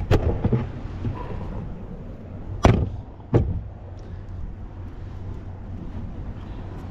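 Three sharp knocks, the loudest about two and a half seconds in, over a steady low rumble.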